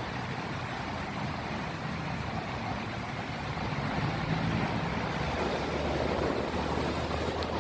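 A diesel truck engine idling with a steady low hum, under a steady rushing noise. The low hum grows a little stronger about halfway through.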